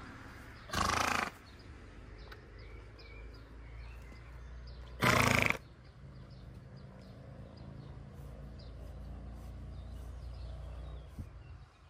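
A pony blowing out hard through its nostrils: two short, noisy snorts about four seconds apart.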